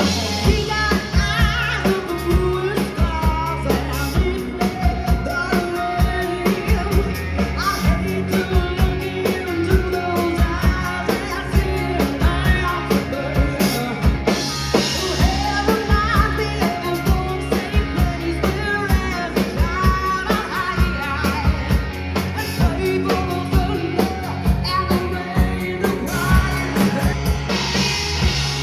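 Rock band playing a song with a singer, over a steady drum-kit beat with guitar.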